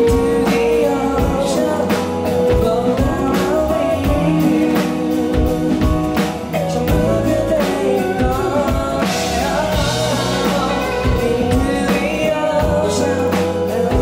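Live band music: a male singer sings into a microphone over electric guitar and drums with a steady beat.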